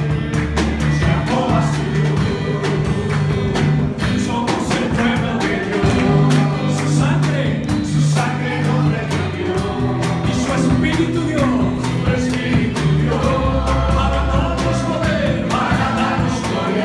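Live worship song: a drum kit with cymbals keeps a steady beat while the congregation sings along.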